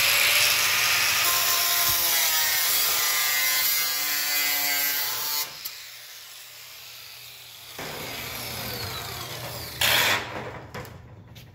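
4.5-inch angle grinder with a cut-off disc cutting through the sheet steel of a pickup door top, the motor's whine shifting as the disc bites. The cut stops after about five and a half seconds, and a short loud burst follows near the end.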